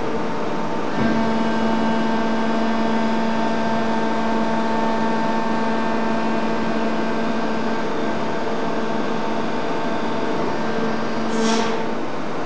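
Sandretto HP 485 injection moulding machine running and cycling, with a steady mechanical hum that holds a few constant tones. The hum steps up about a second in, and a short hiss sounds near the end.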